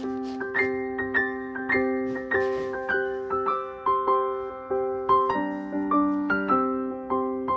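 Background keyboard music: a gentle piano-like melody with notes struck about twice a second, each ringing and fading, over a steady chord that shifts about five seconds in.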